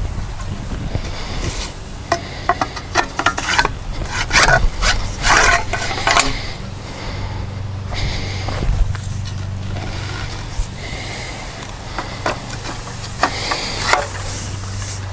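Scattered clicks, knocks and scraping from metal mast poles being handled and slid over a steel fence post, busiest in the first half, with a few more ticks near the end. A steady low hum runs underneath.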